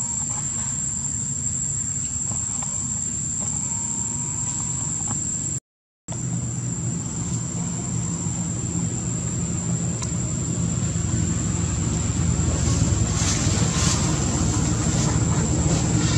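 Steady low engine rumble that grows louder toward the end, under a thin, steady high tone. The sound cuts out completely for about half a second, roughly six seconds in.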